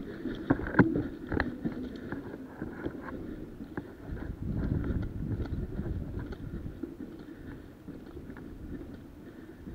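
Footsteps on a concrete floor and rustling of clothing and gear as a player moves through a building, with a few sharp knocks in the first second and a half.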